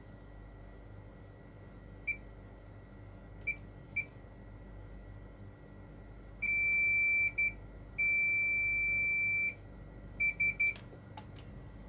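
Digital multimeter continuity beeper sounding in irregular stretches as the probes make and break contact along a circuit-board trace: three short beeps, then a held beep of about a second, a short one, a held beep of about a second and a half, and three quick beeps near the end.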